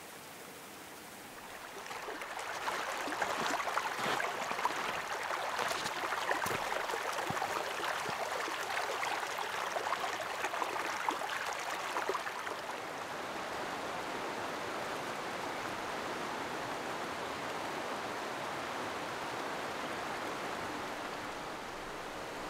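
Rushing water of a mountain stream. It grows louder about two seconds in, splashy and crackling for about ten seconds, then settles into an even rush.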